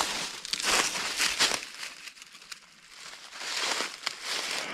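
Footsteps crunching and rustling through dry leaf litter and brush: several close crunching steps, a quieter stretch about two seconds in, then more rustling.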